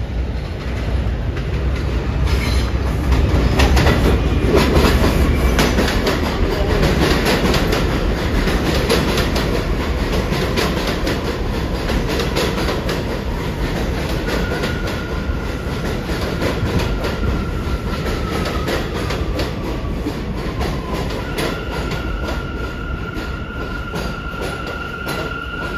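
New York City Subway A train pulling into an elevated station. Its wheels rumble and clatter rapidly over the rail joints, loudest a few seconds in, then ease as it slows. From about halfway a high squeal sets in; it dips slightly in pitch, then holds steady near the end.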